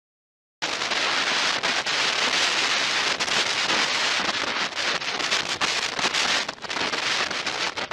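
Wind rushing over a motorcycle rider's camera microphone at road speed, a loud, even rush with constant small buffets, starting suddenly about half a second in.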